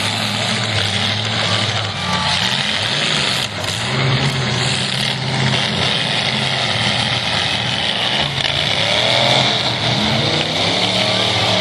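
Demolition derby cars' engines running and revving, their pitch rising and falling.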